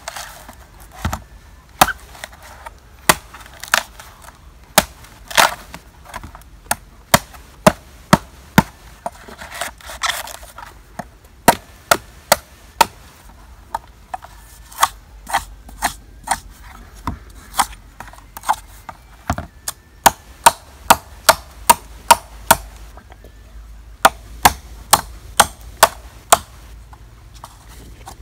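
Machete chopping into the thick husk of a mature, nearly dry coconut, trimming its top flat. A long run of sharp, irregular strikes, sometimes two or three a second.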